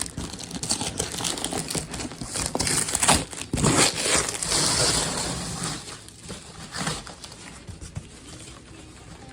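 A damaged cardboard shipping box being pulled open by hand: crinkling and rustling of cardboard and packing, with some tearing. It is loudest a few seconds in and quieter over the last few seconds.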